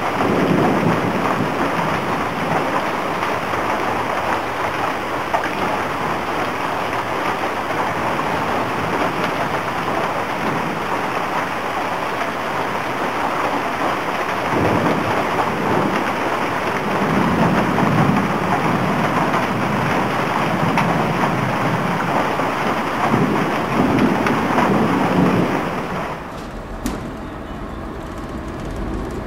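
Steady heavy rain with several low rolls of thunder. Near the end the rain cuts off, leaving a quieter low rumble.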